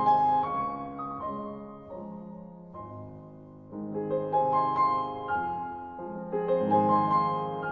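Background piano music: gentle, slow phrases of notes that swell and fade.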